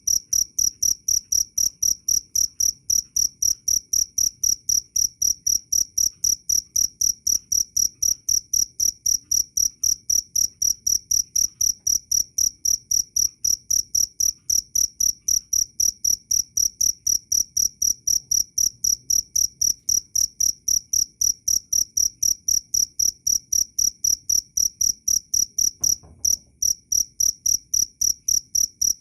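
Cricket chirping: loud, high-pitched chirps repeating evenly at about three a second, with a brief break shortly before the end.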